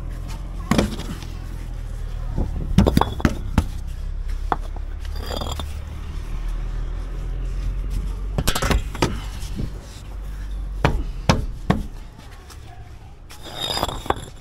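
A steady low rumble of a machine running, which drops away about twelve seconds in, with a string of sharp knocks and clacks over it from work on a road-building site.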